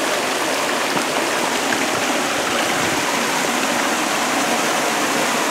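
Small waterfall cascading down rock into a pool: a steady rush of falling water.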